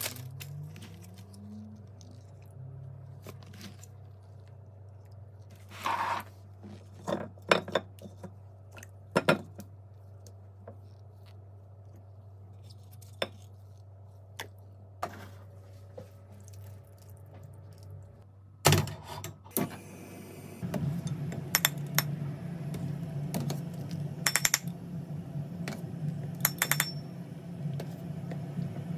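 Kitchen handling sounds: scattered clinks and knocks as ingredients, a plastic tray and a stainless steel pot are handled, over a low steady hum. About twenty seconds in, a steady rushing of a gas burner under a boiling pot sets in, with a metal skimmer clinking against the pot's rim.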